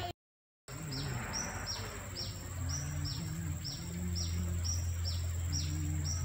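A bird calling over and over, a short high falling note about three times a second, over a steady low hum. The sound cuts out for about half a second near the start.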